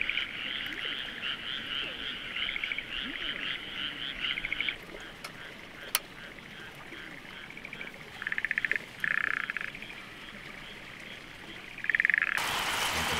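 Frogs calling in a chorus of rapid pulsed croaks, steady at first and then in short bursts with pauses between. A single sharp click about six seconds in, and a steady hiss takes over near the end.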